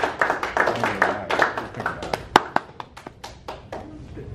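Small audience applauding a speaker's introduction, a few people clapping, thinning out after about two and a half seconds and dying away near the end.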